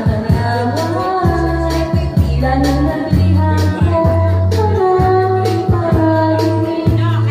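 Music with a female voice singing a wavering melody over a steady bass line and a regular beat.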